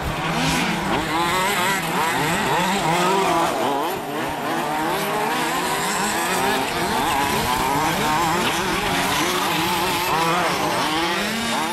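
Several large-scale RC off-road buggies with small two-stroke petrol engines revving up and down as they race. Their overlapping whines rise and fall constantly.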